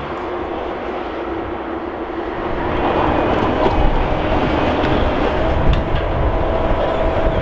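Heavy diesel logging machinery running steadily, getting louder about three seconds in, with a steady whine that comes in about five seconds in.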